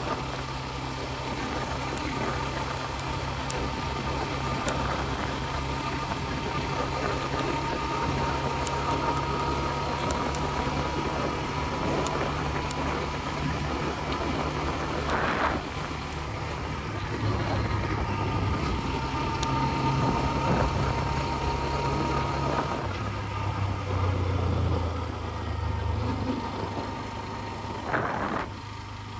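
TVS Ntorq 125 scooter's single-cylinder engine running steadily, with a constant whine on top of the low engine note. The engine note shifts in pitch partway through, and two brief rushing noises come about halfway and near the end.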